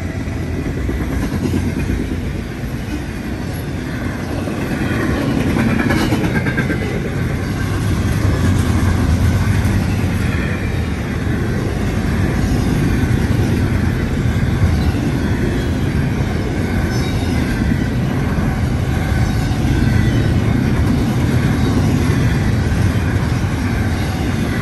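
Double-stack intermodal freight cars rolling past at close range: a steady, loud rumble of steel wheels on rail.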